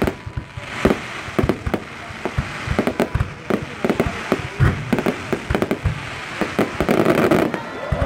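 Aerial firework shells launching and bursting overhead in a rapid, irregular string of bangs, with a denser stretch of crackling and hiss about seven seconds in.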